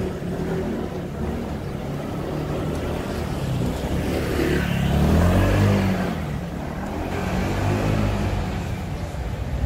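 A motor vehicle's engine passing close by, swelling to its loudest about five seconds in and then fading.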